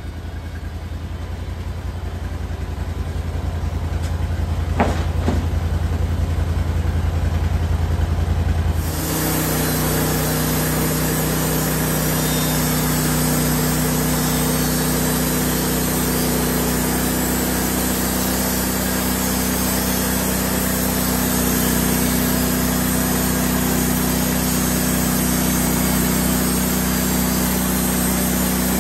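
Band sawmill's engine running at a steady pitch, starting abruptly about nine seconds in. Before that a low drone grows steadily louder.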